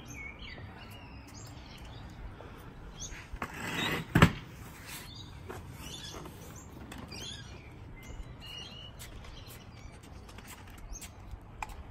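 Birds chirping now and then in the background, with a single loud thump about four seconds in, just after a short rustling swell.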